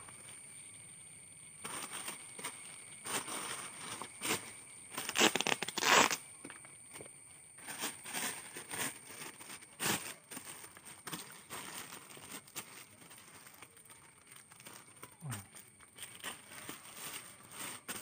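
Clear plastic packaging bag crinkling and rustling in irregular bursts as it is pulled off a fibre tank pad, loudest about five to six seconds in.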